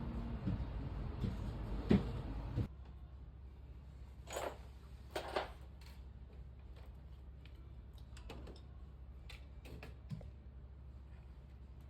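Scattered light clicks and taps over a low steady hum; the background drops abruptly a little under three seconds in, after which the taps come singly and sparsely.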